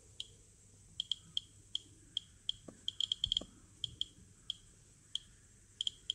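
Geiger counter dosimeter clicking from its speaker, one short high click per particle detected by its mica-window Geiger–Müller counter, at irregular random intervals. It clicks about three times a second, with a quick burst of clicks midway, counting the natural background radiation.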